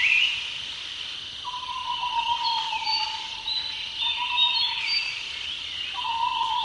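Birds calling together: warbling, gliding whistled song over a steady, long-held lower whistle that breaks off and resumes a few times, with short high notes in between.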